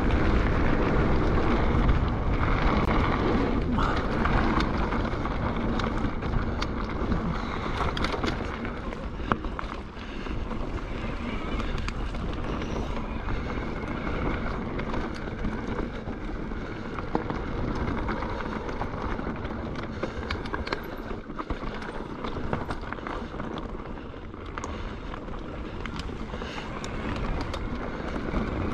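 Mountain bike riding down a loose-stone gravel singletrack: tyres crunching over the stones and the bike knocking and rattling over bumps, with wind noise on the handlebar-mounted microphone.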